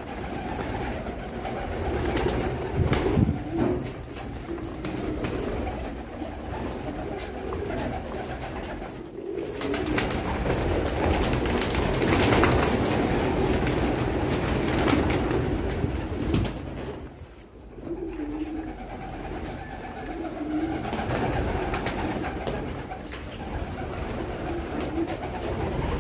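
Flock of domestic pigeons cooing over and over while feeding, with the ticking of beaks pecking corn from a dish. Around the middle there is a louder stretch of wing flapping as a bird lands among them.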